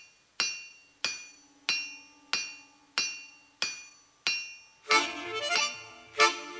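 Hammer striking an anvil in a steady rhythm, about three blows every two seconds, each blow ringing and dying away. Loud music comes in about five seconds in.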